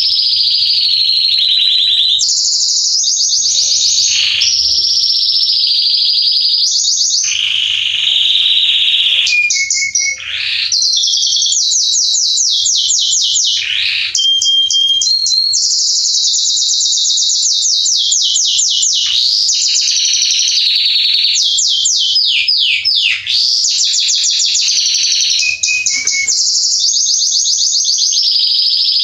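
Male Belgian canary singing a long, loud, high-pitched song of fast trills and rolls, with runs of quickly repeated sweeping notes and only a few brief breaks.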